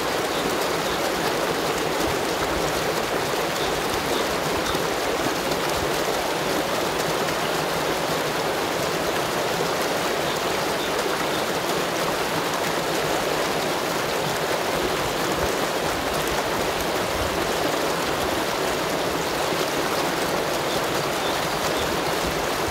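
Stream water rushing and foaming down a narrow channel along a sloping stone slab, a steady, unbroken rush of white water.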